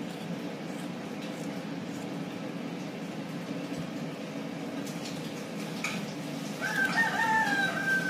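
A rooster crowing: one long, slightly falling call starting near the end, over a steady low background hum.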